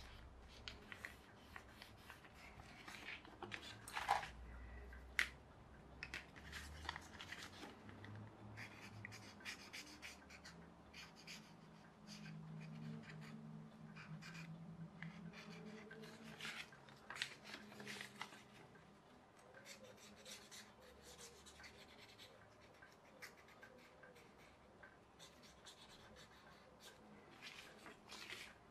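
Quiet rustling and crinkling of paper being folded and creased by hand, with a few sharper taps, two of them about four and five seconds in, and a marker pen scratching on the paper.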